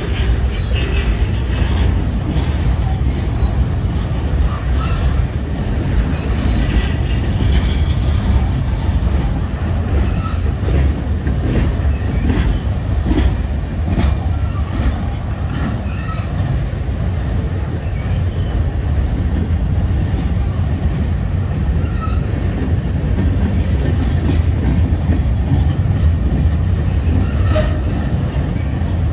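Manifest freight train rolling past: a steady heavy rumble of wheels on rail, with scattered clicks and a few brief, faint high squeals.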